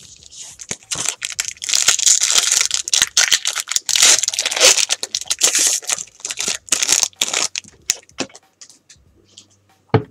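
Foil wrapper of a Bowman Chrome baseball card pack being torn open and crinkled by hand: several seconds of dense crackling and tearing, dying down after about seven seconds, with one short knock near the end.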